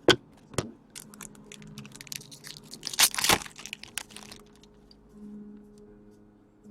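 Crinkling and tearing of a foil trading-card pack wrapper, with sharp clicks and crackles of cards and wrapper being handled; the loudest burst comes about three seconds in.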